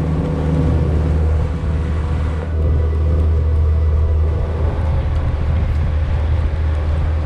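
Boat motor running steadily with the boat under way at speed, over a steady hiss of wind and rain.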